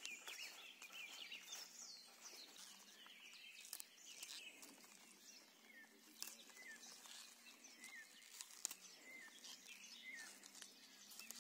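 Faint small birds chirping in quiet open air, with a couple of soft snaps and rustles as green onion leaves are picked by hand.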